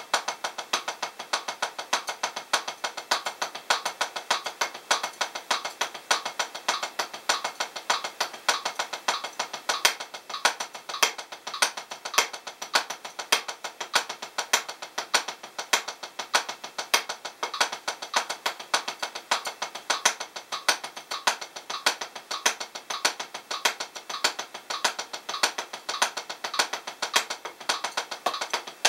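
Single paradiddles played in steady 16th notes at 100 BPM on a Drumeo P4 rubber practice pad with Los Cabos 7A hickory sticks: an even run of about six to seven stick taps a second, with a regular pulse of louder strokes.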